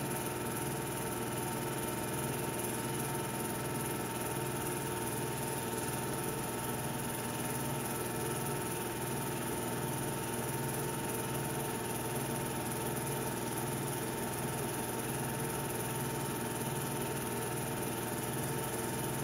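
Film projector running with a steady mechanical whir and hum.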